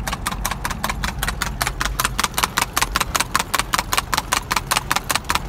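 Horse's hooves striking the road in a fast, even beat, about seven footfalls a second, over the low steady hum of the car pacing alongside.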